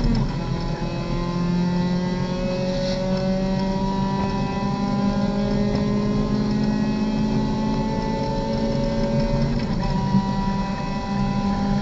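Race car engine heard from inside the cockpit, pulling hard under full throttle down a straight. Its pitch climbs steadily, and an upshift drops it near the start and again about ten seconds in.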